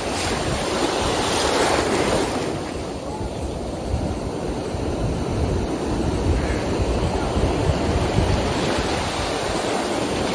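Ocean surf washing onto the beach, with wind buffeting the microphone; a wave's wash swells louder about two seconds in.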